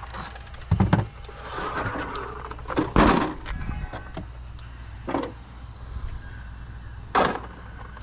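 A few separate thumps and clattering knocks from things being handled, the loudest about a second in and about three seconds in, over a low steady hum.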